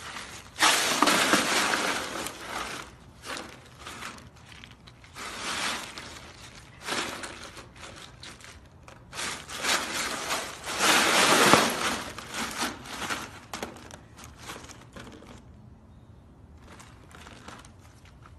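Ice cubes crunching and clattering in a plastic kiddie pool as a husky rolls and wriggles in them. The sound comes in several crackly bouts, loudest about a second in and again around ten to twelve seconds, and dies down near the end.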